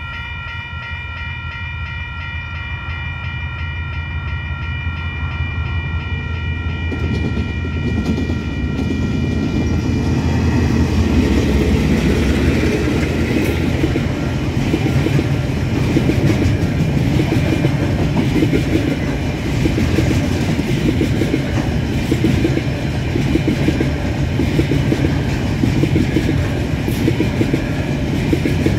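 A KiwiRail freight train hauled by a DXB class (GE U26C) and a DFB class (EMD GT22MC) diesel-electric locomotive approaches over a level crossing, its engine rumble growing louder, with a steady high-pitched tone sounding over the first third. From about ten seconds in, the locomotives and then a long line of container wagons roll past close by, a loud steady rumble with wheels clattering over the rails.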